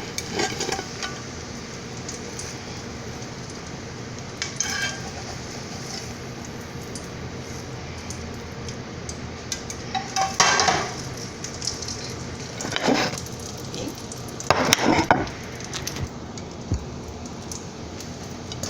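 Egg omelet frying in a hot oiled skillet with a steady sizzle, broken by a few short clinks and scrapes of a utensil against the pan, the loudest about ten and a half and fifteen seconds in.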